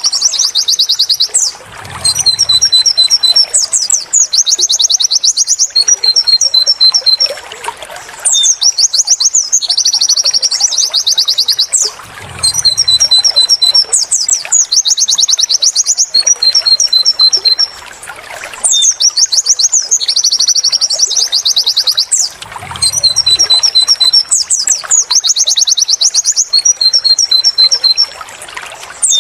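Pleci (white-eye) song of the 'wit wit tulit tulit' type: rapid high trills alternating with short runs of repeated chirping notes. The same sequence repeats about every ten seconds, as a looped tutor recording for training a songbird.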